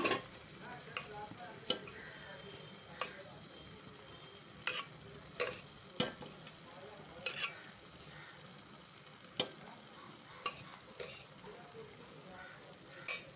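A metal spatula knocking and scraping against a metal cooking pot a dozen or so times, at irregular moments, as boiled rice is added to the masala. Under it runs a steady faint sizzle of the masala cooking.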